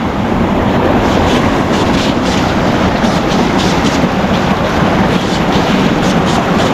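Steady loud rush of a mountain stream cascading down a narrow rock chute close to the microphone, with brief splashes.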